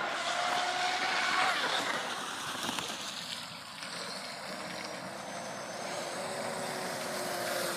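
Motorboat engine running, heard as a steady whine over the hiss of the boat moving on the water. The whine sits higher at first and lower and steady toward the end.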